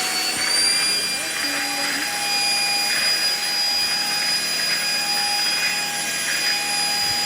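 Deerma handheld dust mite vacuum cleaner running steadily at full suction, a loud motor noise with a steady high-pitched whine over it.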